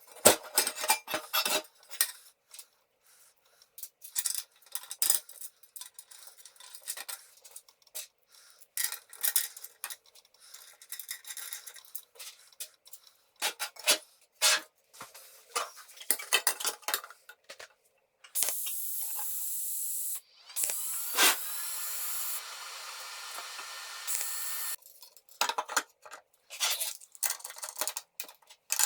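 Metal parts and hand tools clinking and clanking as they are handled and fitted together, in quick irregular knocks. About eighteen seconds in, a steady hiss runs for several seconds before the clinking resumes.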